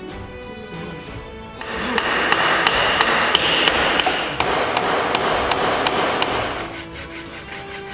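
A run of sharp, evenly spaced knocks, about three a second, like hammer blows on wood, over a rushing noise. Background music plays throughout, alone for the first second and a half.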